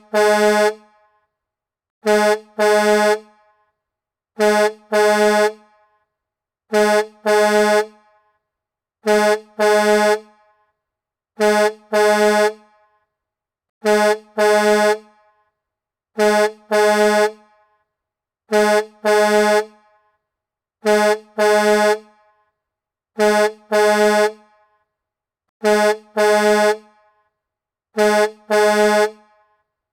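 Semi-truck horn sounding in double blasts, a short honk followed at once by a longer one, the pair repeating evenly about every two and a half seconds, some thirteen times.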